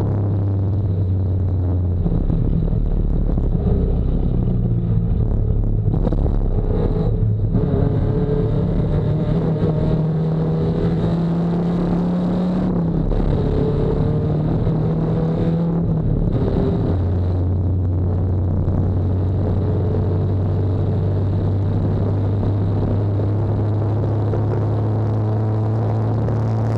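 Nissan 240SX race car engine heard from the onboard camera, its pitch rising and falling with throttle and gear changes for the first part, then holding a steady drone at constant revs for the last ten seconds or so.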